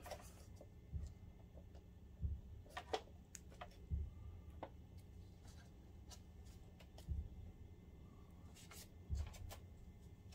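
Faint handling noise: scattered light clicks and a few soft thumps as gloved hands press on a projector's keypad circuit board and its ribbon-cable connector and touch the metal chassis, over a low steady hum.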